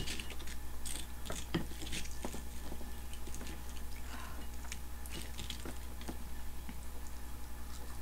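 A person chewing tatsuta-age, deep-fried chicken in ponzu sauce, close to the microphone in a steady rhythm, with small clicks and crunches, over a steady low hum.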